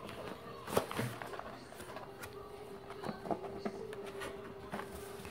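Light scattered clicks and rustles of a subscription box and its packaging being handled and opened, over a faint steady hum.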